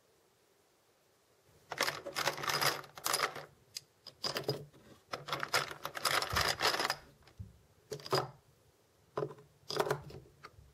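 Loose brass rifle cartridges (6.5-284 Norma) clinking and rattling against each other as a hand rummages through a box full of them and sets rounds into a plastic ammo box. Irregular metallic clicks in clusters start about a second and a half in and continue on and off.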